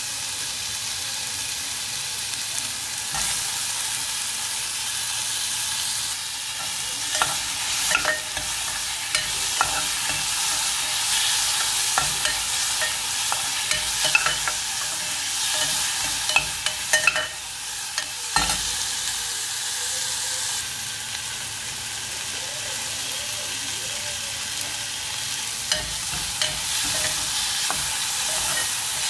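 Chopped onions and tomatoes sizzling in hot oil in an aluminium pressure cooker while they fry until they change colour. A steel spoon stirs them, clinking and scraping against the pot every few seconds.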